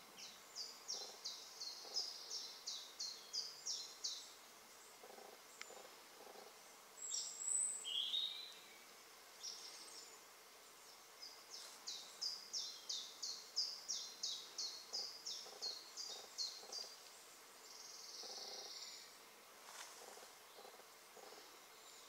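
Woodland songbirds singing. One bird gives a long run of high, thin, evenly spaced notes, about four a second, for several seconds, then repeats the run about halfway through. Other short bird calls come in between.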